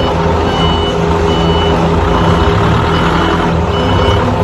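Hangcha forklift reversing with its engine running and its back-up alarm giving short, evenly spaced high beeps, a little under one a second.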